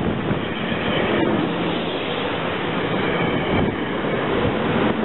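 SEPTA stainless-steel commuter train cars rolling past at speed close by: a steady noise of wheels running on the rails.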